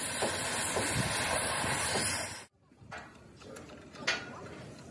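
Oxy-fuel cutting torch hissing steadily as it cuts through a steel truck frame rail. About two and a half seconds in the sound cuts off abruptly to a much quieter stretch with faint crackling and one sharp tick near the four-second mark.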